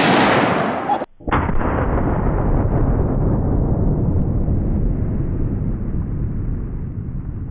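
A .375 H&H Magnum bolt-action rifle fires once with a sharp, loud report. About a second in the sound breaks off, and a long, low, slowed-down boom of the shot follows, fading slowly.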